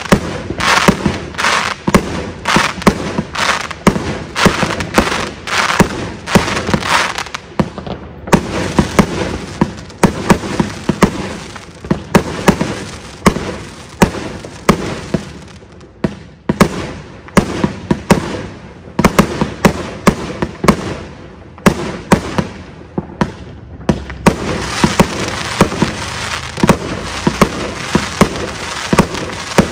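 Consumer multi-shot firework cake firing a rapid string of shots and aerial bursts, with stretches of dense crackling in the first few seconds and near the end, and a few brief lulls between volleys.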